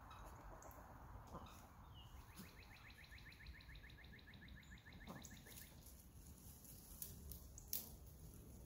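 A bird singing a faint trill, an even run of short repeated notes for about three seconds, over quiet outdoor background. Two sharp clicks sound near the end.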